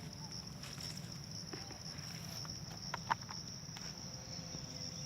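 Steady high-pitched insect trilling, with a few short, sharp sounds about three seconds in, one of them standing out above the rest.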